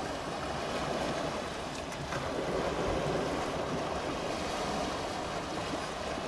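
Sea waves washing ashore, a steady rushing that swells and eases gently.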